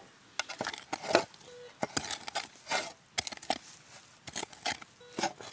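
Shovel blade digging into soil: a quick, irregular series of scrapes and sharp chopping strikes.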